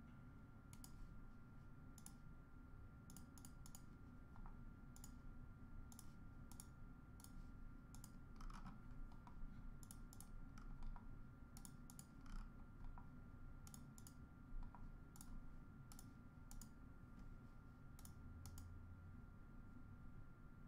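Faint, irregular clicks of typing on a computer keyboard, over a low steady hum.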